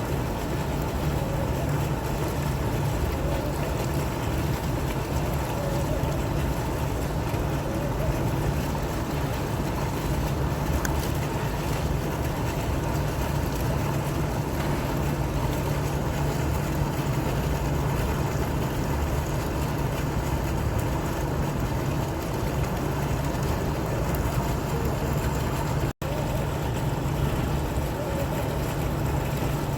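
Fountain water splashing and flowing: a steady rushing with a low rumble underneath. The sound drops out for an instant about three quarters of the way through.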